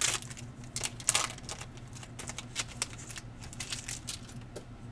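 Trading cards being handled: an irregular run of light clicks and ticks as cards are slid, flipped and set down, busier in the first second or so and sparser after.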